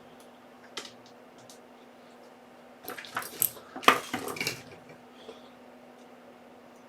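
Small metal tools and screws clicking and clattering on a hard work surface as a laptop is taken apart with a screwdriver: one light click, then a burst of rattling clinks about three to four seconds in.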